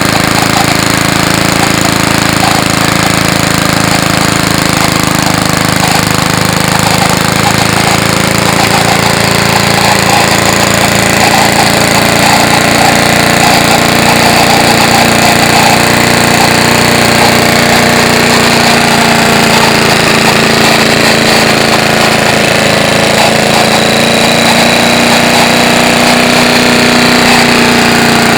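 Small single-cylinder engine of a 1950s Johnston push lawn mower running steadily at a fast idle, loud and unbroken, on its first run after years unused.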